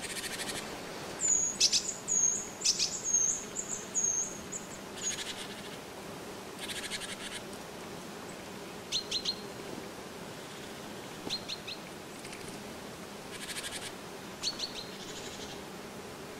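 Small forest songbirds calling. A quick run of high, thin notes lasts a few seconds from about a second in, followed by three brief bursts of short clicking chirps. Short buzzy rasps sound now and then in between.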